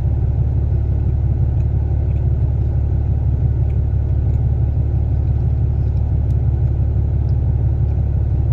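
A steady low rumble at an even level, with a few faint scattered clicks of a cookie being chewed over it.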